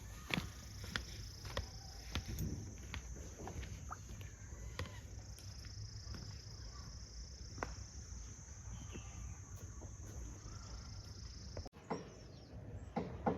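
Steady high-pitched insect drone in woodland, its pitch stepping slightly a couple of times, with scattered snaps and rustles.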